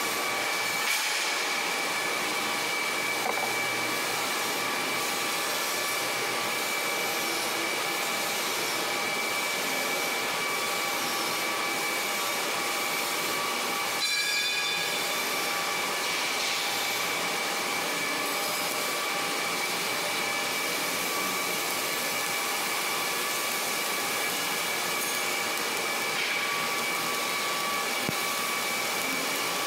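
Steady workshop machine noise: a continuous hiss with a high, unchanging whine, level throughout.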